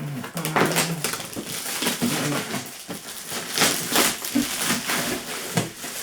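Toy packaging being handled and opened by hand: cardboard and plastic crinkling and rustling, with irregular sharp clicks and crackles.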